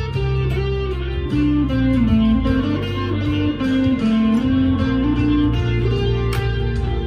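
Harley Benton SC Custom II single-cut electric guitar played through an amplifier's crunch channel: a single-note lead line of held notes, sliding and bending from one pitch to the next.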